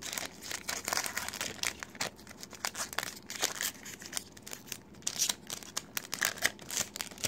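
Foil wrapper of a Pokémon TCG booster pack being torn open and crinkled by hand: a run of irregular sharp crackles and rustles.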